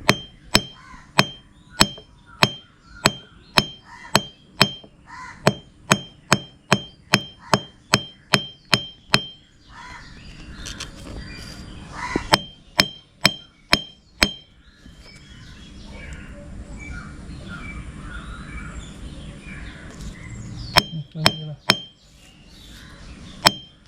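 Sharp strikes of a hammer beating a small piece of lead flat on a flat grinding stone, about three a second for the first ten seconds, then in short runs after a pause, with a light ring on each blow. The lead is being pressed into a thin, blade-like strip to make a fishing-line sinker.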